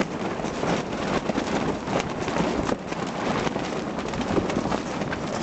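Strong wind blowing: a steady rushing noise full of small crackles and rattles.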